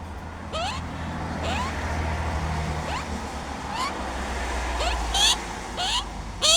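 An animal giving a steady series of short upward-sliding calls, about one every half second, over a low continuous rumble. Several sharp hissy bursts come in the last second or two.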